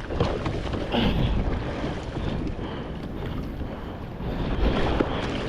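Wind buffeting the microphone over water sloshing and splashing around a kayak at sea.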